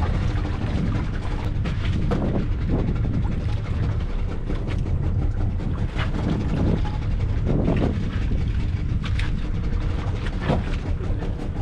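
Small outrigger fishing boat's engine running steadily with a low rumble, mixed with wind on the microphone and water against the hull, and a few scattered clicks and knocks.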